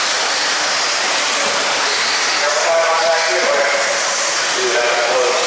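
Several electric RC buggies racing on an indoor clay track: a steady high whine and hiss of their motors, gears and tyres. Voices are heard faintly about halfway through and near the end.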